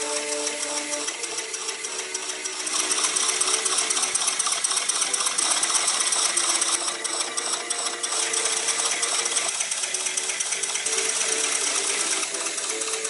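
Small model stationary steam engine running fast: a rapid, even mechanical clatter of its moving parts with hissing exhaust, getting louder about three seconds in.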